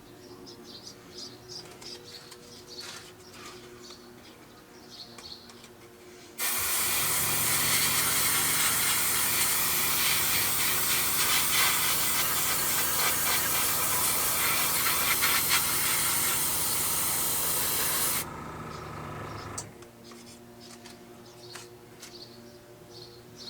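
Airbrush spraying, driven by a small air compressor: a loud, steady hiss of air for about twelve seconds over the compressor's hum. The hiss cuts off suddenly and the compressor hums on for a moment longer before stopping.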